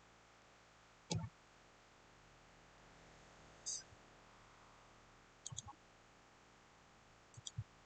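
Computer mouse clicking: a few scattered single clicks and quick double clicks against a quiet room.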